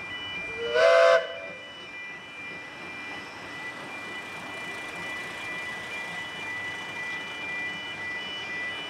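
A narrow-gauge railway locomotive's whistle gives one short blast about a second in. Around it is a steady background hum with faint, steady high tones.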